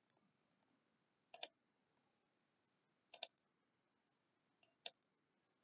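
Computer mouse double-clicking three times, about a second and a half apart, opening folders one after another, against near silence.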